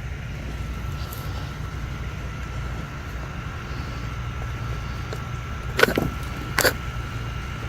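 Two sharp knocks a little under a second apart, from potatoes and buckets being handled during a bucket harvest. Under them runs a steady low rumble with a faint steady high whine.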